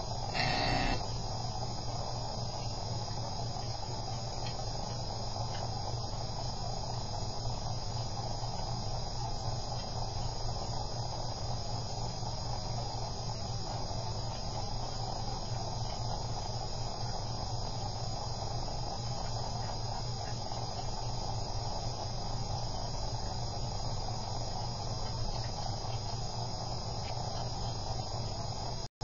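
Steady electronic hiss and low hum from a home security camera's microphone, with a thin high whine held throughout; a brief louder noise about a second in.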